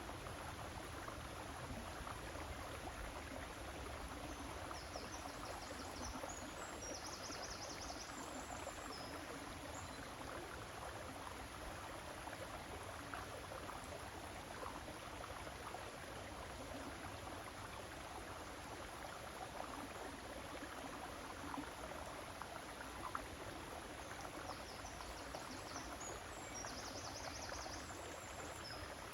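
River water flowing steadily with an even rushing hiss. Twice, about twenty seconds apart, a few seconds of high trilling calls ride over it.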